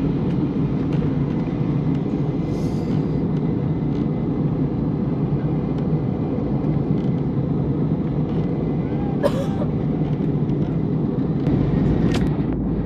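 Steady low drone of an airliner cabin in flight: engine and airflow noise, with a few brief clicks about a quarter of the way in, two-thirds of the way in and near the end.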